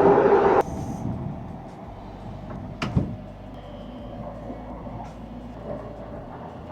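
Train ride ambience. A loud steady drone cuts off abruptly under a second in, leaving a quieter low rumble with one sharp knock about three seconds in.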